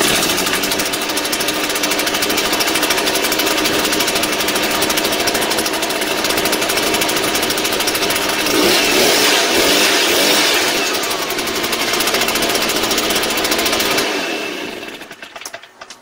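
Shindaiwa EB803 backpack blower's two-stroke engine starting at once and running, revved higher for a couple of seconds past the middle, then shut off and winding down near the end. It is running cleanly after a carburettor cleaning and rebuild with a new diaphragm and spark plug, which cured its no-start fault.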